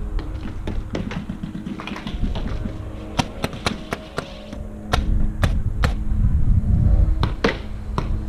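Paintball gunfire across the field: irregular sharp pops and cracks, sometimes a few in quick succession, with a low rumble of wind on the microphone in the second half.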